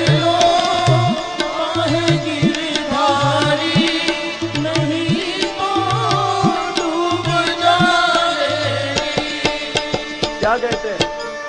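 Instrumental bhajan accompaniment: tabla playing a steady rhythm, its bayan bass strokes bending in pitch, under a wavering melody line.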